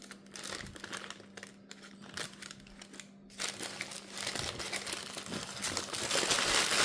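Packaging crinkling and rustling as it is handled, growing louder about halfway through.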